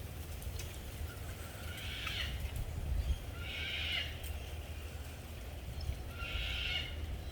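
An animal calling three times, each call a high-pitched, noisy cry lasting under a second, over a steady low rumble.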